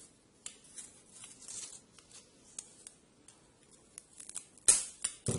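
Scissors cutting through African grey parrot feathers: faint snips and rustles, then two sharper, louder cuts near the end.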